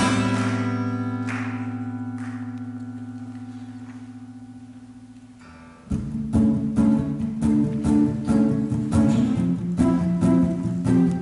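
Acoustic guitar: a chord left ringing and slowly fading for about six seconds, with a couple of soft notes picked over it, then rhythmic strumming starts up again about six seconds in.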